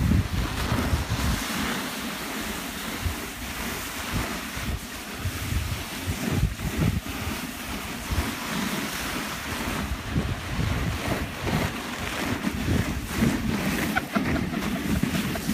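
Steady rushing hiss of a sledge sliding fast down a packed-snow track, with wind buffeting the phone's microphone in irregular low gusts.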